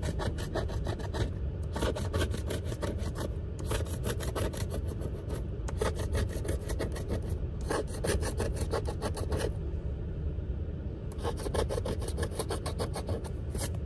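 A coin scratching the coating off a scratch-off lottery ticket in quick rasping strokes, several a second, in runs of a second or two with short pauses and a longer break about two-thirds of the way through.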